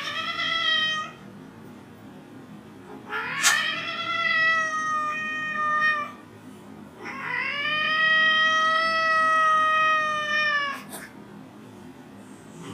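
Cat yowling: three long, drawn-out calls, each held at a steady pitch, the last one the longest and loudest at about four seconds.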